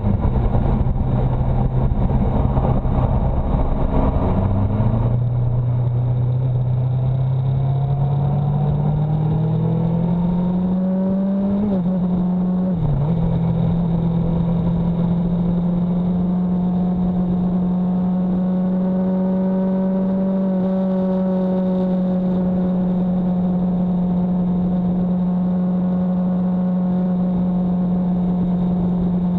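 A road vehicle's engine pulling hard as it accelerates, its note rising steadily in pitch, with a brief dip at a gear change about twelve seconds in, then holding a steady pitch at cruising speed. Rushing wind noise is strong in the first few seconds.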